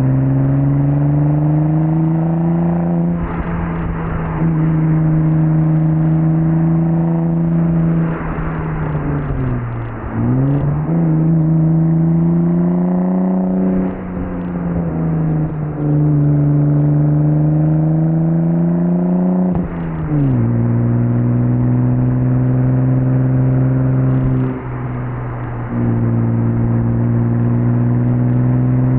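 1998 Audi S4 B5's 2.7-litre twin-turbo V6, Stage 1 tuned, accelerating hard in repeated pulls: the engine note climbs steadily, then drops sharply about five times between pulls.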